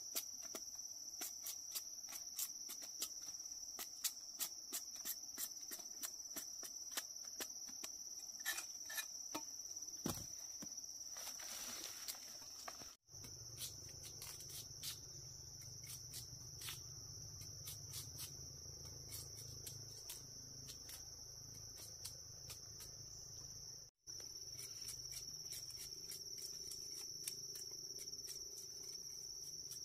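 Steady high-pitched chirring of insects, with many light, irregular clicks and knocks over it, most frequent in the first half.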